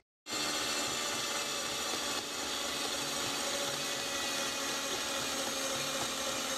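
Electric mixer running steadily, its beaters churning thick chocolate cake batter. It starts suddenly just after the opening, with a slight drop in level about two seconds in.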